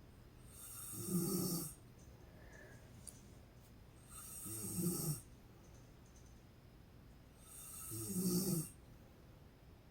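A sleeping woman snoring: three long snores about three and a half seconds apart, each swelling in loudness and breaking off sharply.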